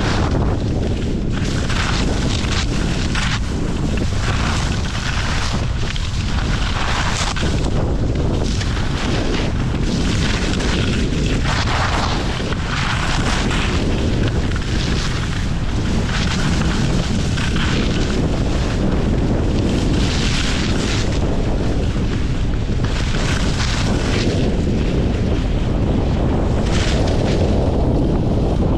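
Wind buffeting the microphone of a camera on a pole during a fast ski descent, a steady low rumble. Over it, the scraping hiss of edges carving packed snow swells and fades with each turn.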